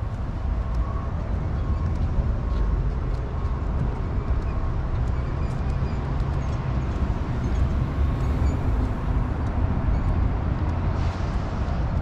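Steady low rumble of outdoor background noise, uneven and heavy in the bass, with faint scattered ticks above it.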